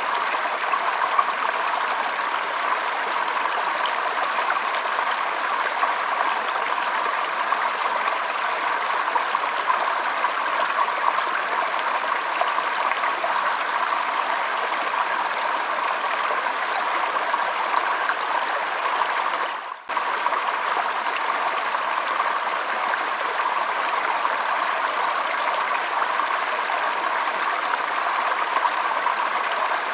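Shallow stream trickling and flowing steadily, with a brief drop-out about two-thirds of the way through.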